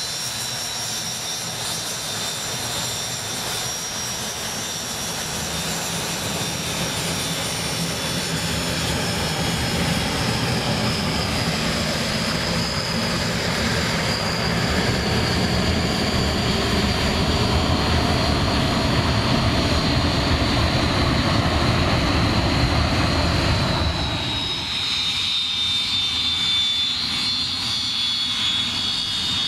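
English Electric Canberra's twin Rolls-Royce Avon turbojets at taxi power as the jet rolls past, a high whine over a low rumble. The rumble swells as it passes close, then drops away sharply near the end, leaving the whine sliding slowly lower.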